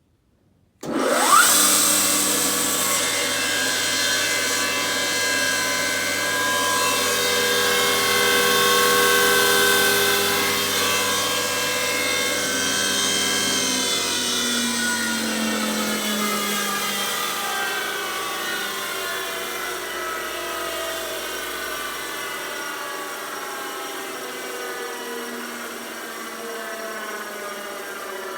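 FSSh-1A spindle moulder switched on about a second in: the motor and spindle spin up with a quick rising whine, then run with a high whine. Over the second half the pitch slowly falls and the sound fades, as the spindle winds down.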